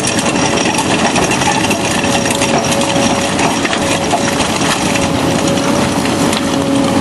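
Excavator-mounted hydraulic drum cutter grinding into rock: a loud, dense rattle of chipping and crunching stone, with a steady whine underneath.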